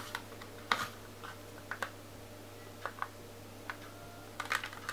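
Irregular light clicks and taps of a plastic Play-Doh Fun Factory press being worked and handled, about a dozen in all, with the sharpest about a second in and near the end. A faint steady low hum runs underneath.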